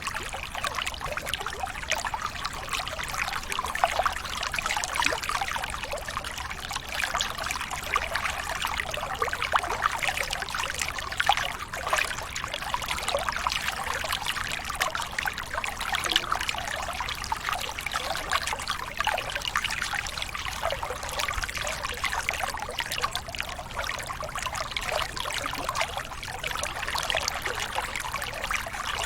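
Water trickling steadily, a dense run of small splashes and gurgles.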